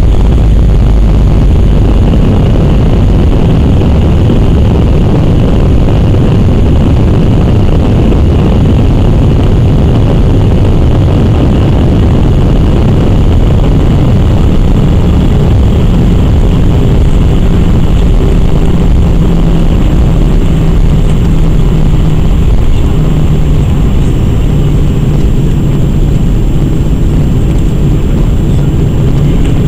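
Loud cabin noise of an Airbus A319-100 during landing: a steady rumble of its jet engines and airflow, with an engine tone that steps down in pitch and eases slightly in loudness about two-thirds of the way in.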